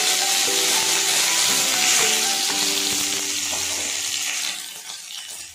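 Dry red chilli and bay leaves sizzling in hot oil in a kadai, a steady high hiss of tempering spices that dies down near the end.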